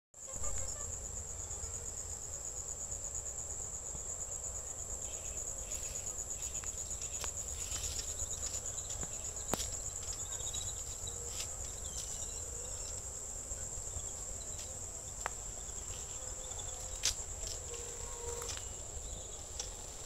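Steady, high-pitched chorus of crickets, finely pulsing without a break, over a low rumble. A couple of sharp clicks come about halfway through and again near the end.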